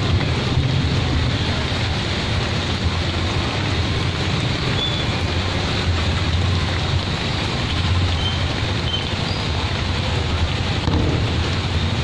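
Steady hiss of heavy rain falling on a wet street, with a low rumble of passing traffic.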